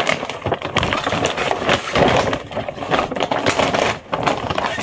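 Plastic shopping bag rustling and crinkling as items are pulled out of it, with small knocks from the items being handled.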